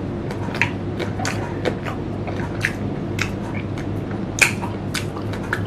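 Crunchy chewing of a crisp slice of unripe green mango, close to a clip-on microphone: irregular sharp crunches over a steady low hum, with one louder crunch about four and a half seconds in.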